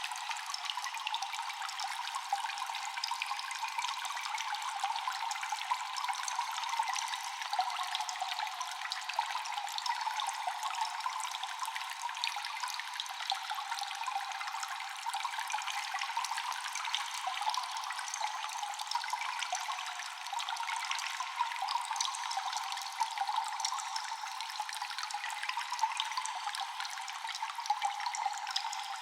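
Cave ambience of water dripping constantly: many small drops falling over a steady trickling wash of water. It sounds thin, with no bass.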